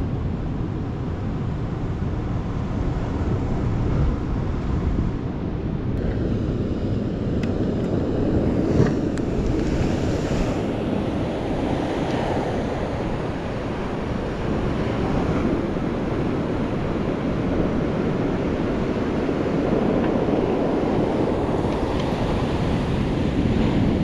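Sea surf washing in and out on a pebble beach, swelling and easing a couple of times, with wind rumbling on the microphone.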